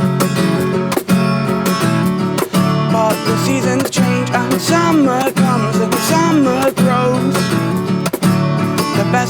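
Acoustic guitar strummed in a steady rhythm, about two strokes a second, with a gliding melody line over the chords.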